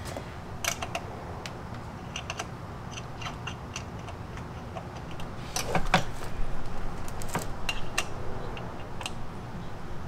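Scattered light clicks and taps of an e-bike's handlebar stem and its parts being handled and fitted, with a louder knock about six seconds in.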